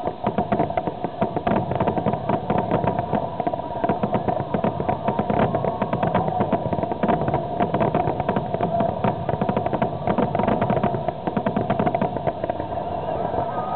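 Fireworks going off in rapid succession, a dense string of sharp bangs and crackles throughout, over a steady background hum.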